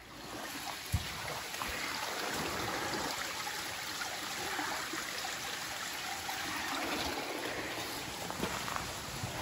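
Steady rushing hiss of flowing water, like a small bush stream, with a few soft knocks on top.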